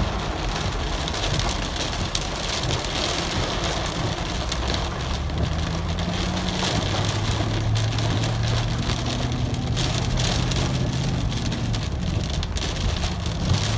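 Heavy thunderstorm rain pouring and spattering, with gusts on the microphone, picked up by an outdoor camera in a tree-lined parking lot. A low steady hum joins about halfway through.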